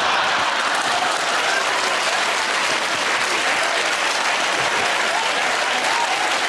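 Studio audience applauding steadily, with some voices mixed in.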